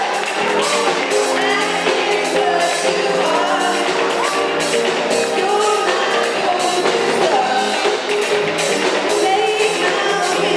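Live band playing a song, with a singer over a steady drum beat.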